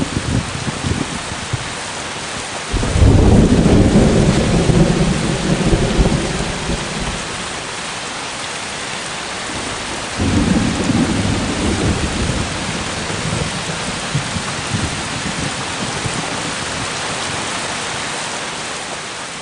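Thunderstorm: steady heavy rain with rolling thunder. A sudden loud peal of thunder breaks about three seconds in and rumbles on for several seconds, then a second, weaker rumble comes about ten seconds in. The rain fades out near the end.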